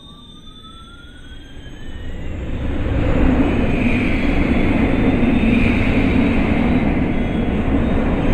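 Battery-powered toy airliner's electronic jet-engine sound effect: a thin whine gliding up in pitch, then a rushing roar that swells about two seconds in and holds steady.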